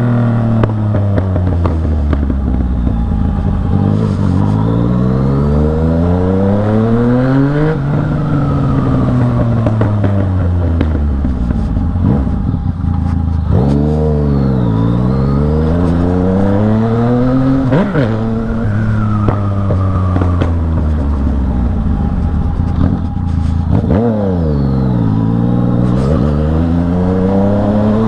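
Yamaha MT-09's three-cylinder engine pulling hard, the revs climbing steeply three times with a fall in revs between each pull.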